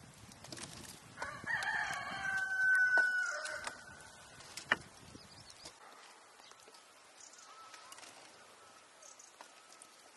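A rooster crowing once, a long call of about two and a half seconds. A sharp click follows about a second later.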